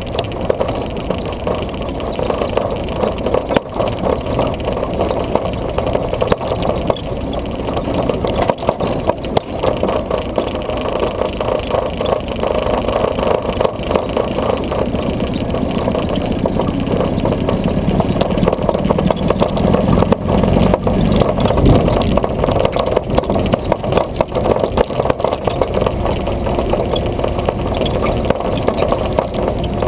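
Vintage military jeep's engine running as it drives, close up, growing louder and deeper for a few seconds past the middle.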